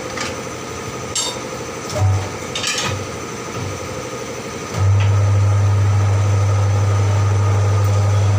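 Tyre repair work: a few short metal clinks and taps, then, nearly five seconds in, a steady low electric-motor hum starts and holds, typical of a shop tool such as a buffer or grinder running.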